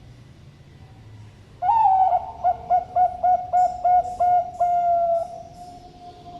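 Bangkok-type zebra dove (perkutut) cooing one full song: an opening coo, a quick run of about eight even notes, then a long held closing note that fades out.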